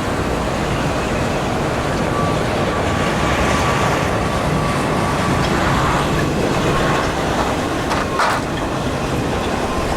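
Freight train of auto-rack cars rolling past, a steady rumble of wheels on rail. A faint thin whine runs through the middle, and there is one sharp knock about eight seconds in.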